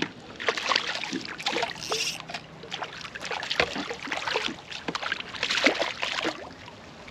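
Water splashing and lapping irregularly around a kayak hull.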